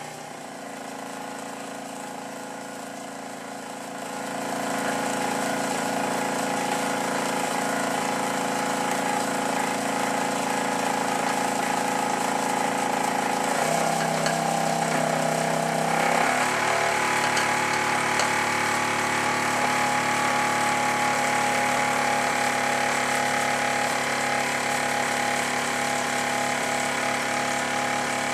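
Cheddar Puffin Mk1 model steam engine running steadily on live steam from its gas-fired boiler, a fast even beat over a steady hum. It gets louder about four seconds in, and its note shifts about halfway through.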